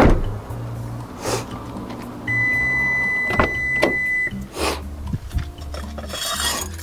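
A single steady electronic beep lasting about two seconds from the kei truck's keyless-entry system, the warning it gives when the locked door is opened by hand, amid sharp clicks and clunks of the door handle and latch; near the end the door swings open.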